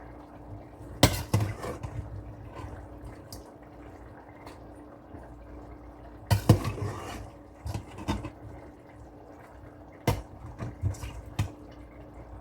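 Kitchen clatter of pots and utensils: scattered knocks and clinks at irregular times, the loudest about a second in and a little past the middle, over a steady low hum.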